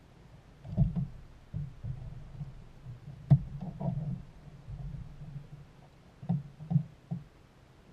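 Irregular dull thumps and knocks on a plastic kayak as a landed catfish is handled aboard on a lip gripper. The loudest knock is just past three seconds in, and three more come in quick succession near the end.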